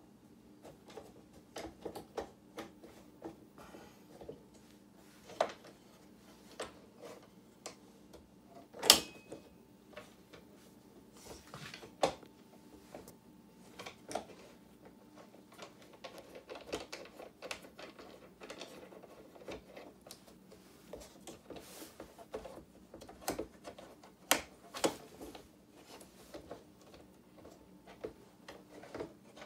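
Irregular clicks, taps and knocks of wood and metal as a Mabef M-22 wooden French box easel is handled: the clamp knob and the leg wing nuts are worked and the wooden parts shift against each other. The sharpest knock comes about nine seconds in, with several more near the end.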